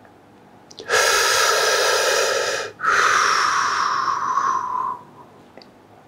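A person's loud, deep breath: a long inhale of about two seconds, a brief pause, then a long exhale of about two seconds that fades out.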